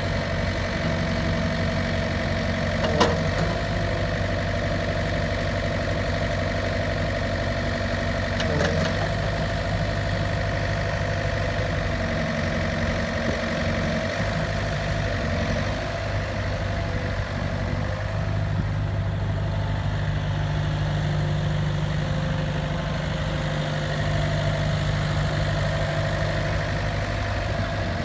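Diesel engine of a Komatsu PC hydraulic excavator idling steadily, with two short sharp knocks, about three seconds in and again near nine seconds.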